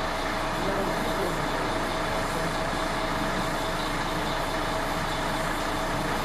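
Oxy-fuel gas welding torch flame hissing steadily as it gas-welds the thin sheet steel of a truck's fuel tank, with a steady mid-pitched hum running through it.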